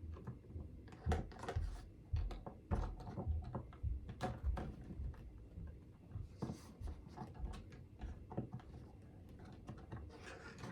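Animatronic prop parts and packaging being handled and pulled from a box: irregular clicks, taps and low knocks, with a stretch of rustling about two-thirds of the way through.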